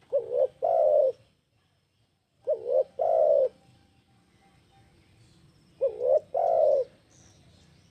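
Spotted dove (tekukur) cooing: three phrases about three seconds apart, each two quick short notes followed by one longer coo.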